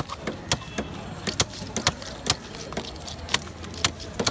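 A curved boti blade cutting through fish flesh and bone, giving irregular sharp clicks and cracks, about three a second, over a steady low rumble.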